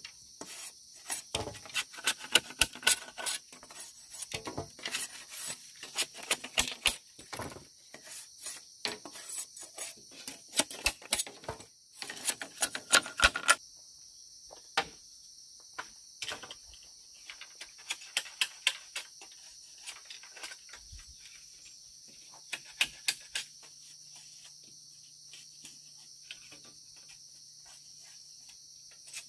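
Rapid, irregular knocks and light clattering of hard pieces, thick for the first half and then scattered, over a steady high insect drone.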